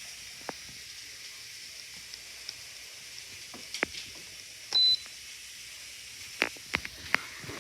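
Amora rice cooker's control panel giving one short, high beep a little under five seconds in, among several sharp clicks of its buttons being pressed, over a faint steady hiss.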